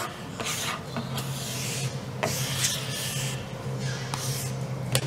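A flexible plastic squeegee scraper dragged across a wood-and-epoxy board, several scraping strokes spreading a thick wood-oil finish, over a steady low hum.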